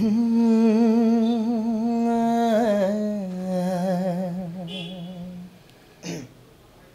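A man singing unaccompanied, holding one long note of a slow Nepali song with a wavering vibrato. The note steps down slightly about three seconds in and fades out near five and a half seconds, followed by a quick breath.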